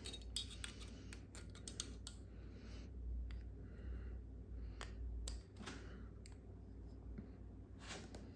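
Irregular light metallic clicks and scrapes from a small screwdriver working a piston-pin circlip into its groove in an original Mahle piston.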